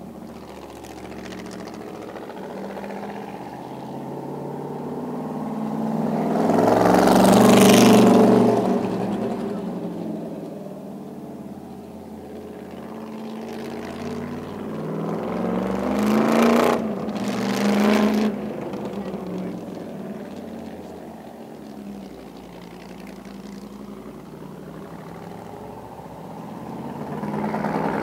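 Cunningham C4R race car's Chrysler Hemi V8 running as it drives laps, swelling loudest as it passes close about a quarter of the way in, surging twice more a little past halfway, and rising again near the end as it comes back.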